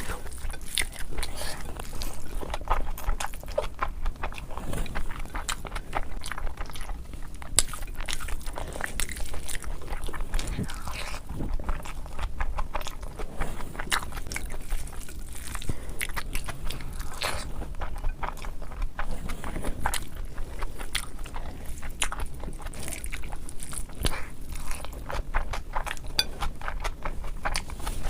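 Close-miked eating: a person biting and chewing crunchy food, with many sharp, irregular crunches.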